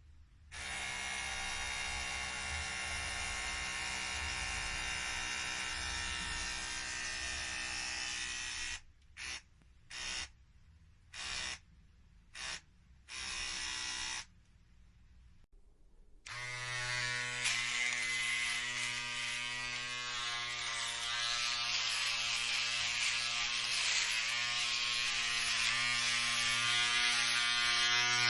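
Electric hair shaver buzzing steadily, then switched on and off in five short bursts. After a pause of about two seconds, another electric shaver or clipper starts with a stronger low hum and runs steadily to the end.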